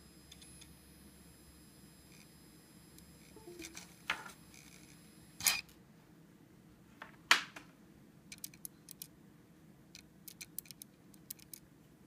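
Opened IBM laptop hard drive, its head arm clicking: a few loud sharp clicks about four, five and a half and seven seconds in, then a run of lighter, quicker clicks, over a faint steady hum.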